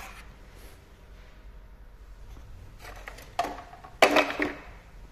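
Brief handling knocks and rustles, the two loudest about three and a half and four seconds in, over a low steady hum.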